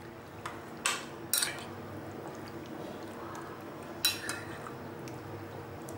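A spoon stirring pieces of mutton liver in a wet yogurt marinade in a glass bowl, clinking against the glass a few times: twice about a second in and again around four seconds.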